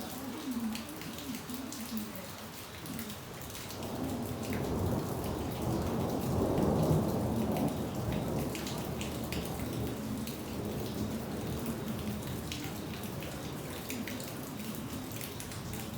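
Steady rain falling, with drops pattering on a surface, and a long low roll of thunder that builds about four seconds in, is loudest midway, then slowly dies away.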